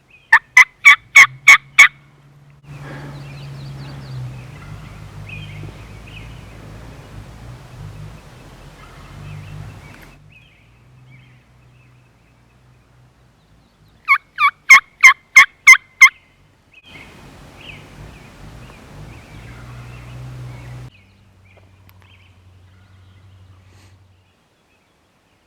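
A hunter's turkey call sounding two loud series of about seven sharp, quick yelps each, the second series some 14 seconds after the first. The calls are meant to make a distant gobbler answer.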